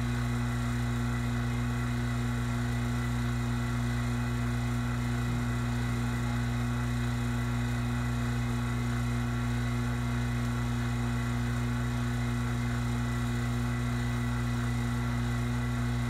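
Electric rotary vacuum pump running steadily with a constant hum as it pulls a deep vacuum on refrigerant manifold gauges.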